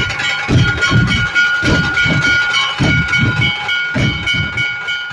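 Large rope-tensioned barrel dhol drums beaten together by a troupe: a fast run of deep booming strokes, about three or four a second, with a steady high ringing tone held over them.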